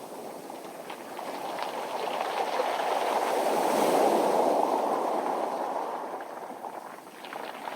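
A wave surging up a round-pebble beach: the rush of surf swells to a peak about four seconds in and fades, then the pebbles clatter and rattle as the next wave comes in near the end.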